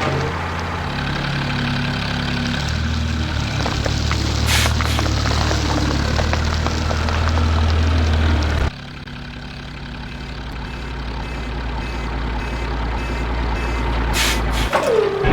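Truck engine running with a steady low drone that climbs in pitch, then cuts abruptly to a quieter, lower drone about nine seconds in that builds again. There are a few brief hisses.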